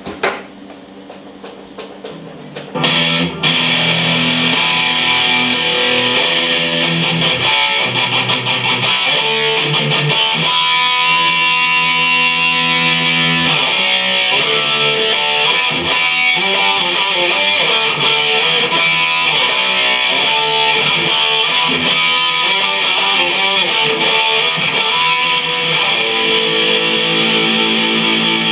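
Photogenic Les Paul-style bolt-on electric guitar played through an amplifier: a few quiet notes, then about three seconds in it jumps to loud, distorted riffs and chords.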